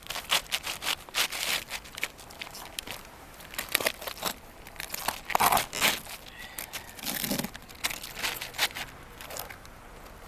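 Roofing shingles being handled and hand-nailed: crinkly scraping and rustling, with irregular sharp taps.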